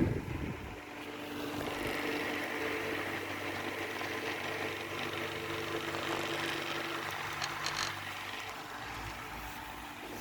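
Tecnogas TBF-615 mini box fan running with a steady motor hum and a light rush of air, after a much louder rush of air cuts off right at the start.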